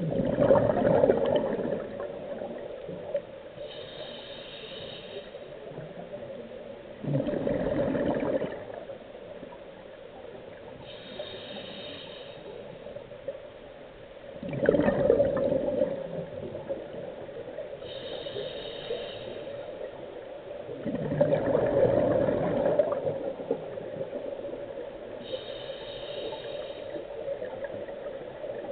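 Scuba diver breathing through a regulator underwater. Four slow breath cycles about seven seconds apart, each a faint high hiss of inhaling followed by a louder rush of exhaled bubbles.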